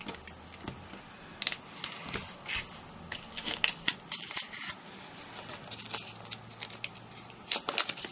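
Irregular small clicks, taps and rustles of hands picking spilled sequins up off a craft work surface.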